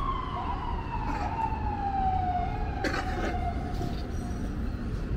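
An emergency-vehicle siren wail: it rises sharply, then falls slowly over about three seconds and fades away, over steady street traffic noise. A short knock sounds about three seconds in.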